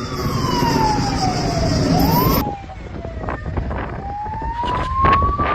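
Emergency vehicle siren wailing, its pitch sliding slowly down and then back up, over a low rumble of traffic and wind. The sound changes abruptly about two and a half seconds in, and the wail comes back rising slowly near the end.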